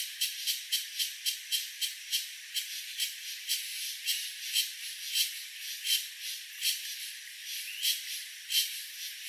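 An animal calling in a series of short, high rasping pulses, about four a second at first and slowing to about two a second later.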